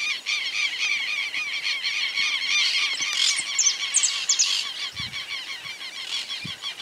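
Birds calling without a break: a fast series of short, arched call notes, several a second. A few high, thin chirps from another bird come through around the middle, and a couple of faint low knocks follow near the end.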